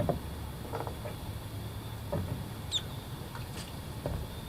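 Faint scattered clicks and light clinks of a fishing magnet being handled with hooks, scissors and other metal scrap stuck to it, with a brief high chirp about two-thirds of the way through.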